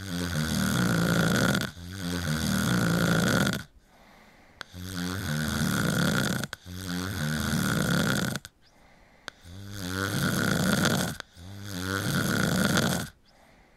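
People snoring: six long snores of just under two seconds each, coming in pairs with a longer pause between pairs.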